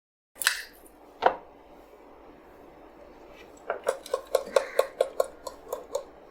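Hard plastic knocks as the Tihoo mini desktop vacuum's dust compartment is tapped to shake out the collected debris: two single knocks, then about a dozen quick taps in a little over two seconds, each with a short clattering ring.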